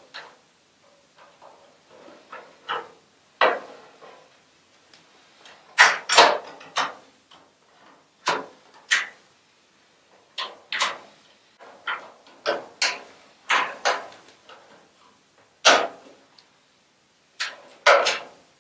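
Irregular clicks and knocks, a couple of dozen of them, as LED T8 tubes are handled and seated into the lamp holders of a sheet-metal fluorescent troffer.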